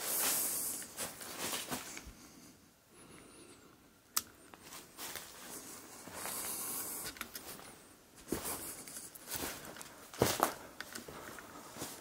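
Irregular footsteps and scuffs of someone walking through a mine tunnel, with a sharp knock about ten seconds in.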